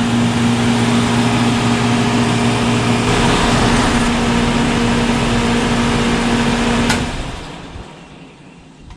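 1986 Whirlpool 2-ton central air conditioner running, its Bristol reciprocating compressor humming steadily under the condenser fan's rush. About seven seconds in it clicks off, and the compressor and fan wind down to near quiet.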